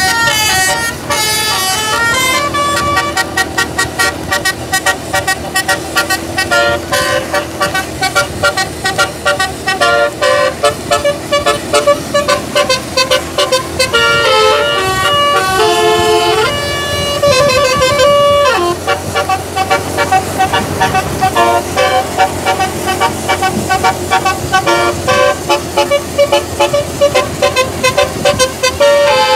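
Indonesian tour bus's 'telolet' musical air horn (basuri) playing tunes in quick runs of short notes, several tones at once. A few longer sliding notes come about halfway through.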